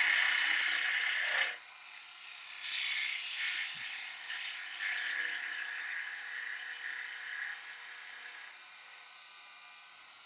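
Woodturning gouge cutting spinning wood on a lathe: a steady shaving hiss that stops suddenly about a second and a half in, then comes back in several shorter, uneven passes that grow fainter.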